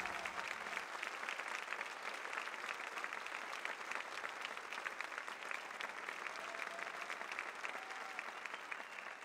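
Audience applauding, many hands clapping steadily as the dancers take their bow.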